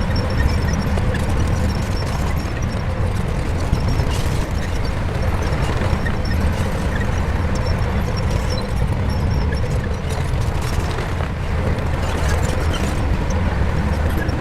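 Shantui bulldozer's diesel engine running steadily under work, a deep, unbroken rumble.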